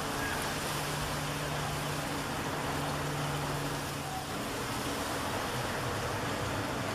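Steady distant road-traffic noise with a low engine hum that drops a little in pitch after about four seconds.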